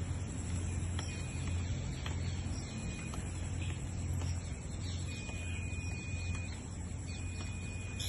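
Poultry-shed cooling system running: a steady low hum with an even wash of noise, as the pump feeds water to the evaporative cooling pads. Faint bird chirps sound over it.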